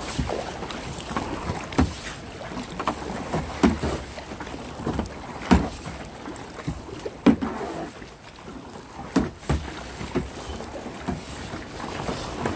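Kayak paddle strokes: the blades splash into choppy water with a sharp knock about every two seconds. Water slaps the plastic hull and wind buffets the microphone.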